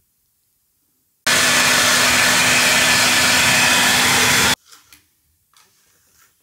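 Handheld hair dryer blowing steadily with a low hum. It starts about a second in and cuts off suddenly about three seconds later, followed by a few faint short rustles.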